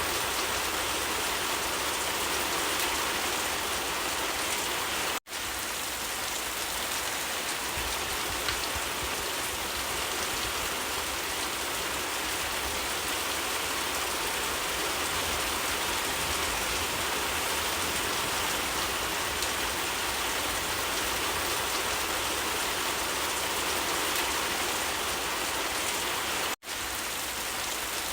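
Steady, heavy rain falling and pattering on surfaces, an even wash of noise with no pauses in the downpour. The sound drops out for an instant twice, about five seconds in and near the end.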